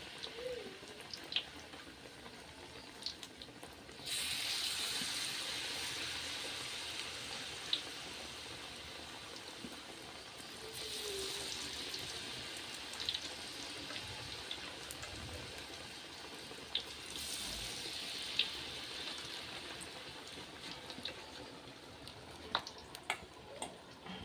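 Food sizzling in hot oil in a pan. The hiss jumps up suddenly about four seconds in, as when food goes into hot oil, and swells again twice later, with scattered sharp clicks of a utensil against the pan.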